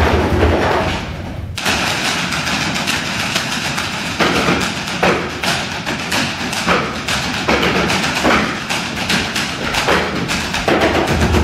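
Live stage percussion: drums and barrel-shaped drums struck by hand or stick in a fast, dense run of knocks and thumps that thickens after about a second and a half, with stronger strikes about once a second.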